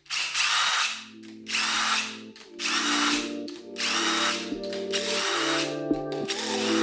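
Handheld power tool running in repeated short bursts, about one a second, as bolts are run out during an engine teardown. Background music with a steady bass line plays underneath from about a second in.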